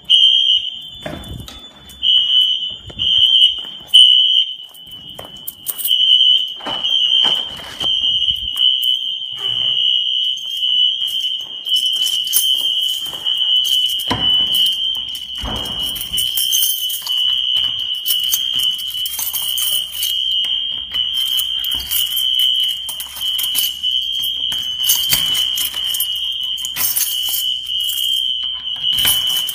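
Wheelock fire alarm horns sounding a loud, steady high-pitched tone, with the system in alarm for a fire alarm inspection. Footsteps and handling knocks sound through it.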